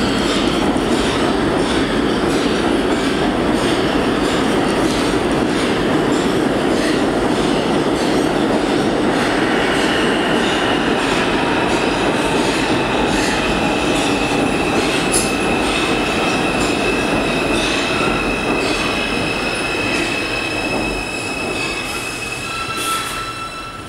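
A New York City Subway R142 train pulling into an underground station: a loud, steady rumble of steel wheels on the rails, joined about ten seconds in by a steady high-pitched squeal as the train slows. The rumble fades over the last few seconds as the train comes to a stop.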